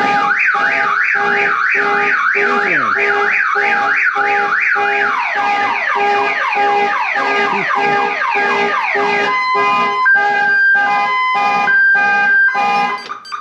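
Viper car alarm siren sounding after being triggered as a test. It cycles through its tones: a fast up-and-down warble, then repeated rising sweeps, then a high-low two-tone. A pulsing tone beats about twice a second underneath, and the siren cuts off near the end.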